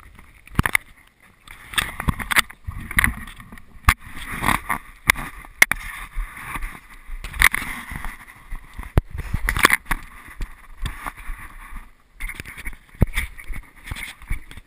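Handling noise from a body-worn action camera rubbing against a padded winter jacket: rustling with many sharp knocks and clicks at an uneven rate as the wearer moves.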